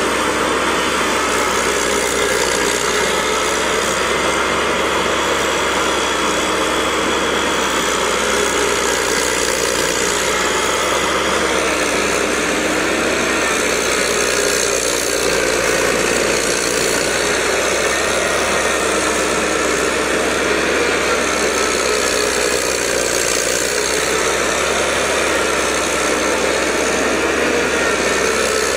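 Engine of a small amphibious swamp tractor running steadily as it works through mud and water, its note wavering slightly with the load.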